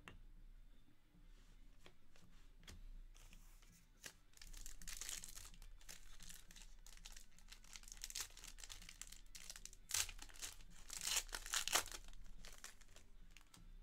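Foil trading-card pack (Panini Revolution basketball) being crinkled and torn open by hand. A crinkly rustle about five seconds in, then louder ripping about ten to twelve seconds in as the wrapper is torn apart.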